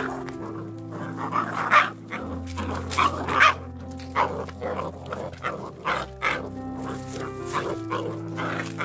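Jindo puppies play-fighting, yapping and barking in short bursts, over background music.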